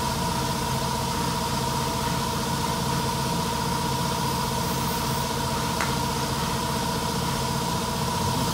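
A motor-driven machine running steadily at constant speed, an even hum with a clear whine on top.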